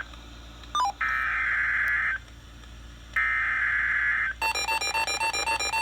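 Emergency Alert System SAME header tones over NOAA Weather Radio: two bursts of buzzing digital data, each about a second long, with radio hiss between them, marking the start of an alert. About four seconds in, a rapid, evenly pulsing electronic alert beep begins.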